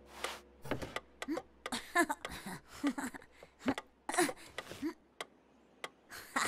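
Hushed boys' voices: short breathy whispers and snickers in quick, separate bits, with a few small clicks between them.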